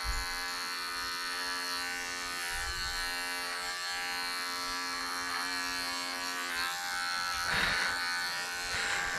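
Electric pet clippers running with a steady buzz while trimming the fur around a dog's paw pads, with brief rougher patches near the end as the blade works through the hair.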